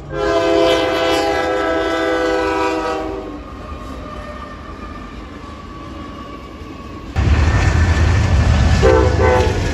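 Diesel locomotive air horn sounding one long chord for about three seconds, followed by quieter train noise. About seven seconds in, a sudden cut to a loud low rumble, with a brief two-part sound near nine seconds.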